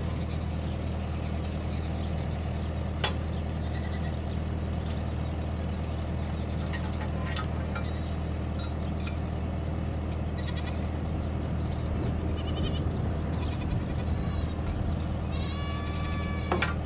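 Goats bleating several times from about ten seconds in, the longest and loudest call near the end, over a steady low hum. A single sharp click sounds about three seconds in.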